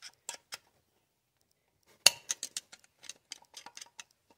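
Steel screwdriver tip clicking and scraping against the oil pump's inner gear inside the front timing cover of a 2.4 Ecotec engine, as the gear is turned to line its flats up with the crankshaft. A few light metal clicks, a pause, then a sharp click about two seconds in followed by a run of quick small clicks.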